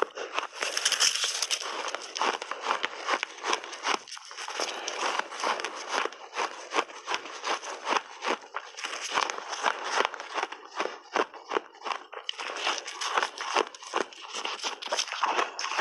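Crunchy shaved ice being chewed in big mouthfuls: a dense run of crisp cracks and crackles, with short pauses between bites.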